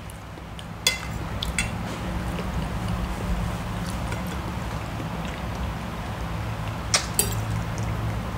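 People eating at a table: a few sharp clinks of a fork on china plates, about a second in and twice near the end, over a steady low hum.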